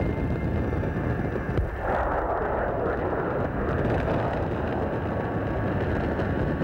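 Deep, continuous rumbling drone of a sound-design soundtrack. About two seconds in, a rushing, hissing layer swells in over the rumble and then fades back.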